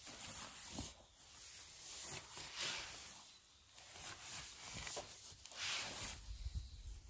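A rod with a Y-piece tip being pushed along through a mossy lawn to press a boundary cable into the turf: repeated rasping swishes as it tears through grass, moss and soil. Footsteps in rubber boots on the grass, with low thuds near the end.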